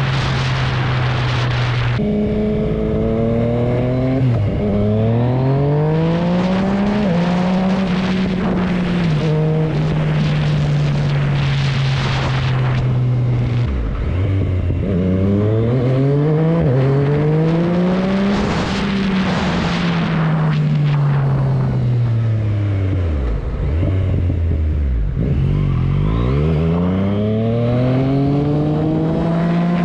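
Yamaha MT-09's inline three-cylinder engine heard from on board. The revs climb through the gears, dropping at each upshift, hold a steady note while cruising, fall away as the bike slows about two-thirds of the way in, then climb hard again near the end. Rushing wind hiss comes and goes at speed.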